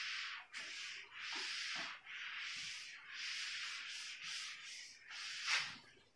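Whiteboard duster wiping marker off a whiteboard: a run of scrubbing strokes about a second each, the last one louder, stopping near the end.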